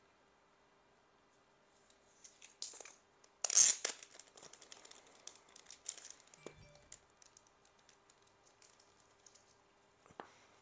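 Rustling and crinkling of clear plastic trading-card holders and sleeves being handled, with a few small clicks. The loudest rustle comes about three and a half seconds in, and smaller ones follow until about seven seconds.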